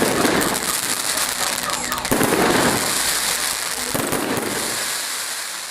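Fireworks display: dense crackling of exploding shells, with heavier bursts about every two seconds, fading away near the end.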